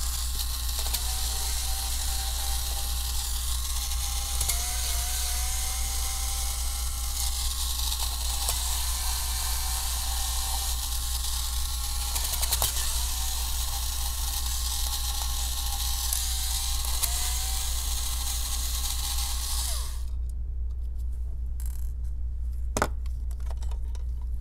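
Electric precision screwdriver running steadily, backing out the screws that hold a laptop's CPU fan, its whine dipping briefly several times. The motor stops about twenty seconds in, and a single sharp click follows.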